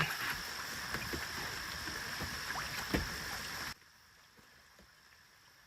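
Rain falling steadily, with many small drop ticks. It cuts off abruptly about two-thirds of the way through, leaving only a faint hiss.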